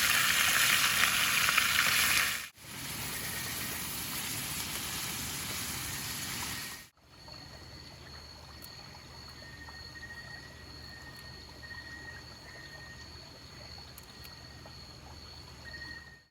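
Rushing water, loud at first and then quieter after abrupt cuts about two and a half and seven seconds in. In the last part a steady high-pitched tone and an on-off lower tone sound over faint hiss.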